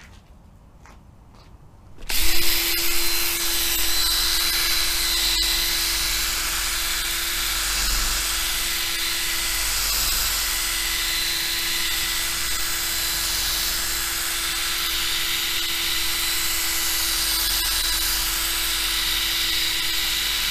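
Electric drill starting up about two seconds in and then running steadily at one even pitch, spinning a 3M restoration pad against a plastic motorcycle windscreen.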